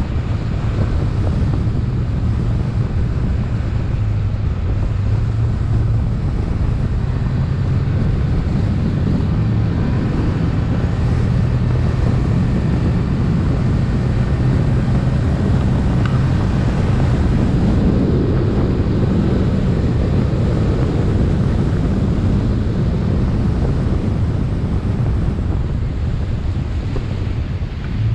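Fishing boat running under its outboard motor, a steady low engine drone mixed with wind buffeting the microphone and water rushing along the hull.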